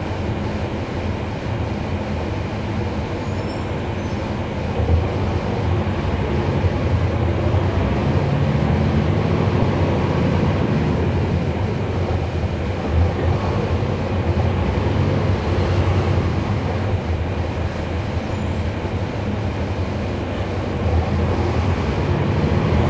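Cabin sound of a 2011 NABI 40-SFW transit bus under way: its Cummins ISL9 inline-six diesel and ZF Ecolife automatic transmission running, with a steady low rumble of engine and road noise. It grows louder about five seconds in and again near the end.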